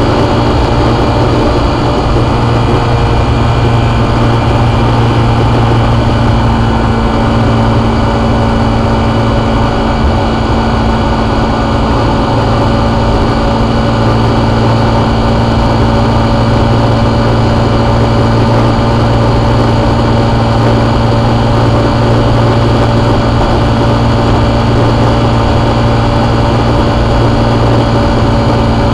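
Honda motorcycle engine running at a steady cruising speed while riding, one even engine note that holds throughout, over a steady rush of road noise.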